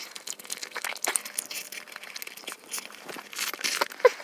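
Close-miked chewing of a mouthful of burger: a run of short wet clicks and smacks from the mouth, with a brief pitched mouth sound about four seconds in.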